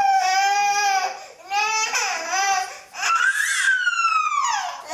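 A young child's high-pitched voice, wordless: drawn-out vowels, then about three seconds in a long squeal that rises and slides down in pitch.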